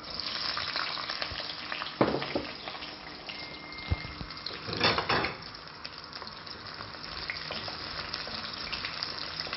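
Whole garlic cloves and ginger pieces sizzling in hot oil in a stainless steel kadai, stirred now and then with a wooden spoon. There is a sharp knock about two seconds in and a short, louder rush of sizzling about five seconds in.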